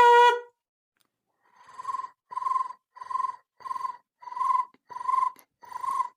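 A person making a vocal sound effect: seven short, evenly spaced hoots at one steady pitch, about one and a half a second.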